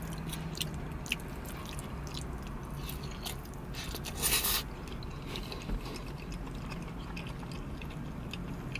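Close-up eating sounds: a fork scraping and clicking in a plastic takeout bowl and the chewing of spaghetti with breaded eggplant parmesan, with a short loud slurp of noodles about four seconds in.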